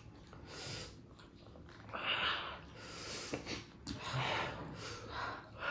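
A person sniffing and breathing hard, five or six short noisy breaths about a second apart, the reaction to eating very spicy food.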